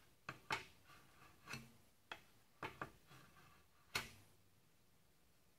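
Steel screwdriver shank drawn along the edge of a carbon-steel card scraper to burnish it, rolling over its cutting hook: a run of short, faint metallic scrapes and clicks, about seven of them, the sharpest about four seconds in, after which they stop.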